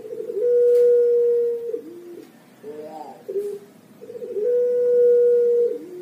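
Young puter pelung dove cooing: two long calls about four seconds apart, each starting with a few quick broken notes, then one long held note that drops lower at the end, with a short run of broken notes between the two calls.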